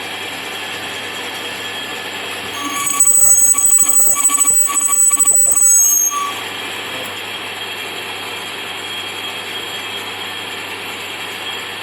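Metal lathe running steadily while boring out the recess for a bearing; from about three seconds in to about six seconds the boring tool bites into the metal, loud with a high-pitched squeal, then the lathe runs on without cutting.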